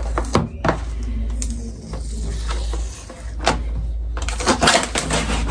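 A cardboard box and its packaging being opened and handled: scattered taps and clicks, then a busier run of crinkling and rustling near the end.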